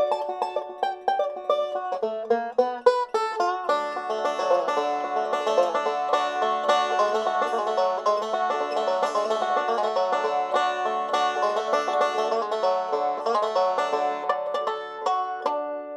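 Five-string banjo in open D tuning played bluegrass style with a thumb pick and metal finger picks, in fast rolling three-finger picking. Near the end it stops on a final chord that is left ringing.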